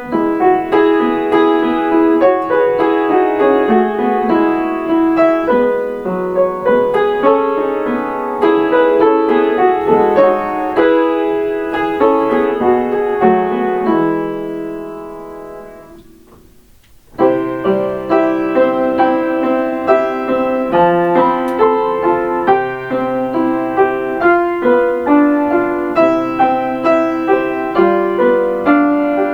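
Solo piano playing Kintetsu limited express onboard chime melodies. One piece ends about fourteen seconds in and rings out, and another begins about three seconds later.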